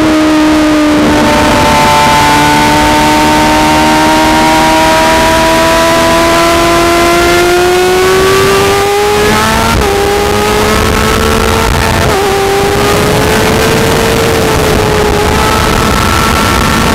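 Racing sportbike engine running hard at high revs, heard from an onboard camera with heavy wind rush. Its pitch climbs slowly for about nine seconds, then breaks briefly about ten and twelve seconds in before climbing again.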